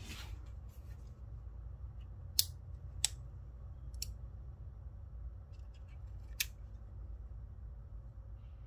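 Sharp metallic clicks from the action of an unloaded Charter Arms Undercover Lite .38 Special revolver being worked by hand: four clicks spread over a few seconds, the first the loudest, over a steady low hum.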